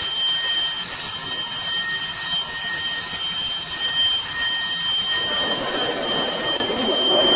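Electric school bell buzzing one long, steady, high-pitched tone that cuts off near the end, the signal for the change of class.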